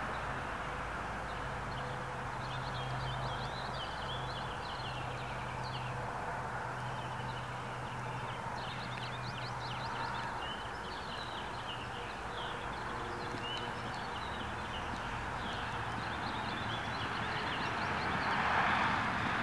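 Outdoor ambience: small birds chirping repeatedly over a steady background hiss, with a low hum in the first half and a broad swell of noise near the end.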